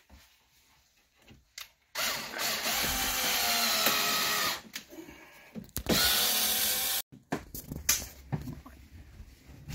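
Cordless drill running in two bursts: a steady run of about two and a half seconds starting about two seconds in, then a shorter one about six seconds in, with a few small clicks between.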